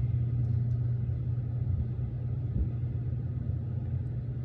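A steady low hum, with a few faint small ticks.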